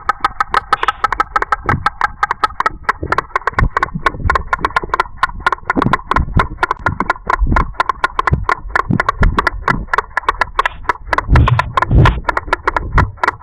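White storks bill-clattering: a fast, steady run of dry wooden clacks, about eight a second, with a few heavier low thuds near the end.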